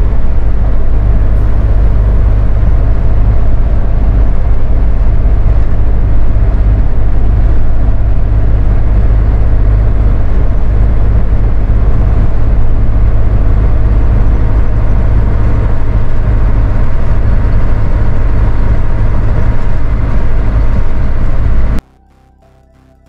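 Mitsubishi Fuso Rosa minibus driving at a steady cruise, heard from the driver's cab: a loud, steady engine and road drone. Near the end it cuts off suddenly, leaving faint music.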